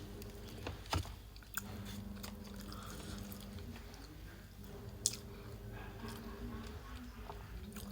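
Close-miked chewing and mouth sounds of a person eating a kota, a bread sandwich with sausage, egg and cheese, with a few sharp wet clicks. A faint steady hum runs underneath.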